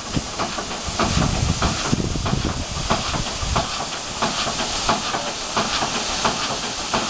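Steady hiss of steam from a Ruston Proctor portable steam engine, with irregular knocks over it.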